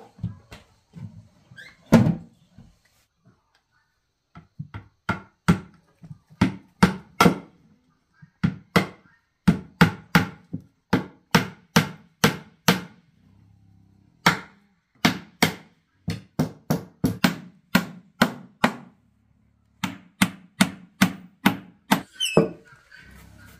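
Hammer driving nails into wooden boards: a run of sharp strikes, about two to three a second, with a couple of short pauses.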